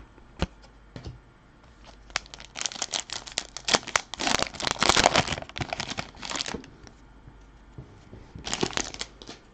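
The foil wrapper of an Upper Deck Artifacts hockey card pack being torn open and crinkled by hand. There are a few light clicks first, then a dense crackle for about four seconds, and another short burst of crinkling near the end.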